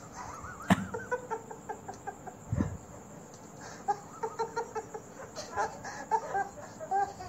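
Short, repeated voice sounds in quick runs, with a sharp knock under a second in and a dull thump near the middle.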